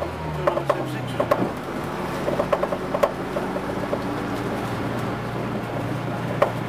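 Vintage bus heard from inside the saloon while on the move: the diesel engine runs with a steady low drone, its note dropping about a second in and then holding. Scattered rattles and knocks from the bodywork and fittings come through over it.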